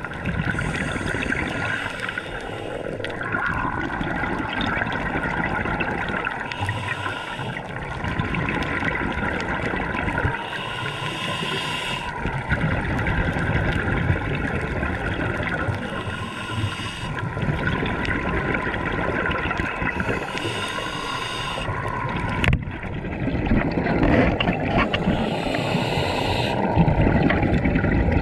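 Scuba diver breathing through a regulator underwater: a hiss on each inhale, recurring about every four to five seconds, with gurgling, bubbling exhales between. A single sharp knock comes about three-quarters of the way through.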